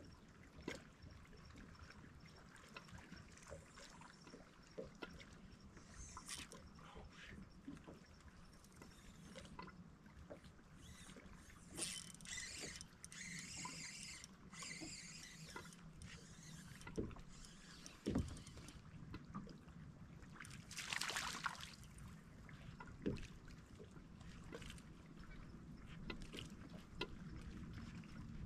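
Quiet water lapping against a bass boat's hull, with scattered light knocks and clicks and two short bursts of hiss-like noise, one near the middle and one about two-thirds through.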